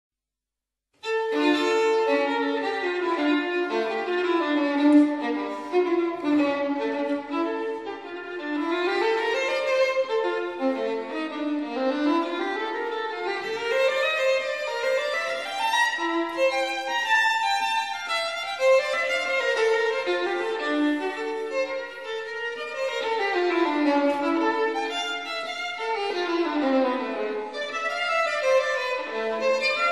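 Background instrumental music with a bowed-string melody running up and down in quick phrases, starting about a second in.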